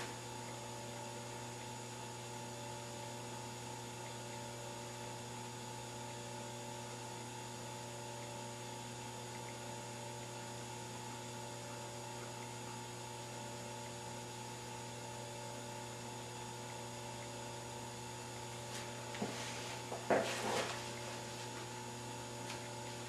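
Steady electrical mains hum holding several fixed tones, with a few faint taps and rubs about three-quarters of the way in.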